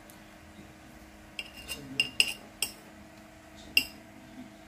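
A metal spoon clinking against a ceramic plate while scooping up rice: a quick run of sharp, ringing clinks from about a second and a half in, then one more near the end.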